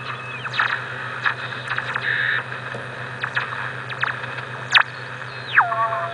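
Hiss and crackling static from an RBM-1 military valve radio receiver being tuned across the band, with a brief steady whistle about two seconds in. Near the end a whistle glides sharply down in pitch and holds as a steady tone, with fainter warbling signals above it. A low steady hum runs underneath throughout.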